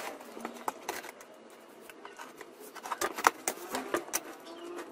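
Utility knife slitting the packing tape on a cardboard carton, then the cardboard flaps being pulled open. It sounds as scattered sharp clicks and scrapes, growing denser about three seconds in.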